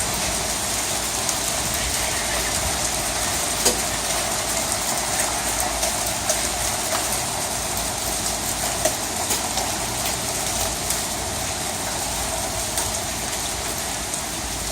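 Half-inch hail pelting down hard, a steady dense clatter with many sharp individual hits standing out from it.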